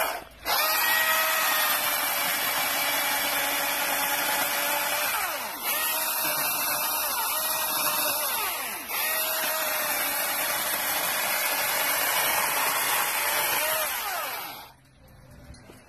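Milwaukee M18 Fuel 16-inch cordless chainsaw running and cutting through a small downed branch. It stops briefly just after the start, then runs steadily, with its pitch sagging under load a couple of times. It stops near the end.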